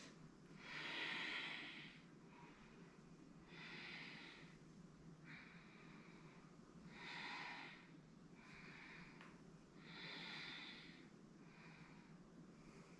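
Faint breathing in and out through the nose, paced with a slow movement: four longer, stronger breaths about three seconds apart, each followed by a shorter, softer one.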